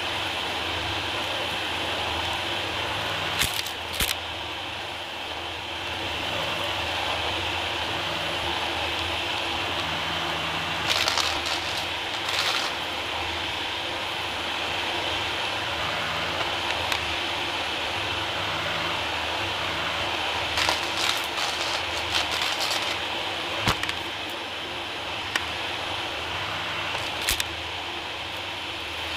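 Dyson DC40 upright vacuum cleaner running steadily on a hard laminate floor, with a high whine over the airflow. Grit and small debris crackle up through the cleaner head in short clusters about four times.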